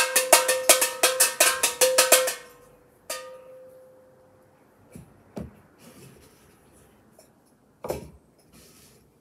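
A medium-sized bell rung rapidly, about five strokes a second, for a little over two seconds. It is struck once more and left to ring out, and a few short knocks follow.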